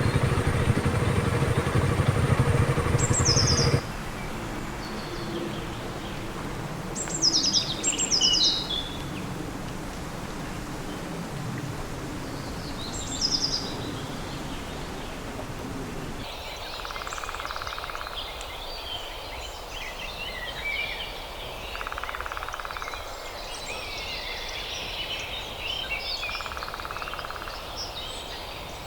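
Forest birds calling: a few sharp, high, falling calls at first, then from about halfway a dense chatter of chirps with a short buzz about every five seconds. At the start a vehicle engine idles and stops abruptly about four seconds in.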